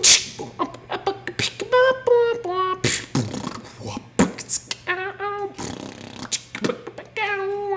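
Beatboxing: quick mouth-made drum hits and clicks mixed with short sung or voiced notes, giving way near the end to a held, wavering hummed tone.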